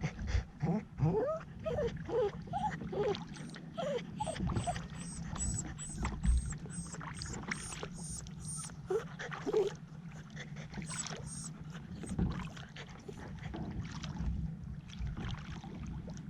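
Dog whimpering in short rising and falling whines, several in the first four seconds and a couple more about nine seconds in.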